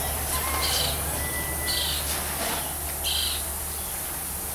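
A bird giving three short high calls about a second apart, over a steady low hum and hiss.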